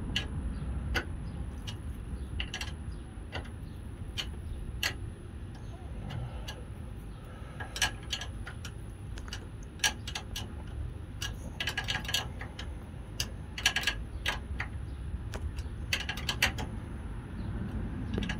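Irregular metal clicks and clinks of a wrench on a fuel-line fitting as a new fuel filter is tightened in place, some coming in quick runs, over a low steady rumble.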